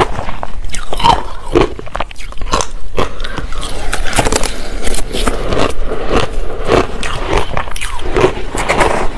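Crushed ice with passion fruit pulp being bitten and chewed close to a clip-on microphone: a dense, loud run of crunches and crackles. A metal spoon scrapes and scoops through the ice in the bowl between bites.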